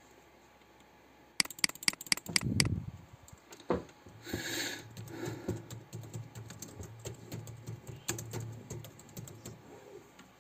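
Typing on a computer keyboard: a quick run of sharp key clicks about a second and a half in, then a longer stretch of lighter, irregular keystrokes later on.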